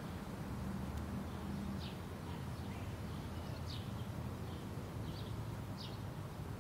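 Small bird chirping outdoors: several short, high chirps about a second apart, over a steady low rumble.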